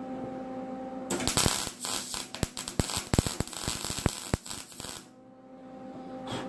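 MIG welder arc crackling and popping for about four seconds as it tacks thin sheet-metal fender panel, with a shielding gas rather than flux core. It starts about a second in and stops sharply, and a steady electrical hum runs before and after.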